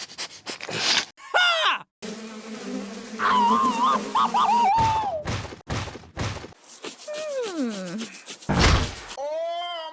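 A string of cartoonish sound effects: many quick clicks, a buzzing hum with wavering squeaky tones in the middle, a falling pitch glide, then a short whoosh.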